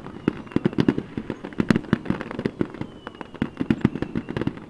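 Aerial fireworks bursting in a rapid, irregular string of sharp bangs and crackling pops, several a second.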